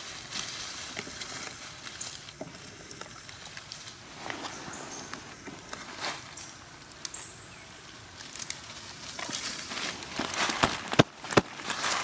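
Dry leaf litter rustling and crackling as long-tailed macaques move about on the forest floor, with scattered crisp clicks and a few sharper ones near the end. A short, high, rapid trill sounds partway through.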